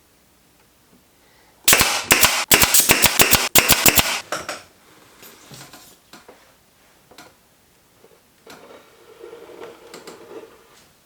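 Pneumatic nail gun firing a rapid run of about fifteen sharp shots in just over two seconds, followed by fainter clicks and handling noise.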